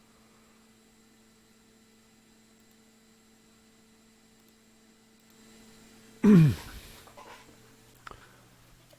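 Steady low electrical hum from the bench equipment. About six seconds in, a person lets out one sudden, loud, short vocal burst that drops sharply in pitch.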